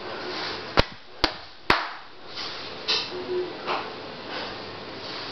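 Three sharp knocks or clicks about half a second apart, followed by a few fainter short scuffs.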